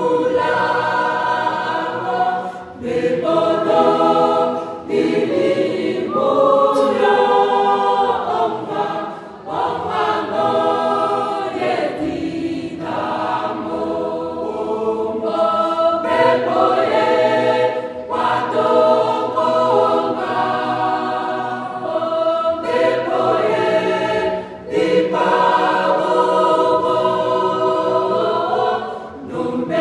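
Mixed choir of men's and women's voices singing in harmony, in held phrases of a few seconds with brief breaks between them.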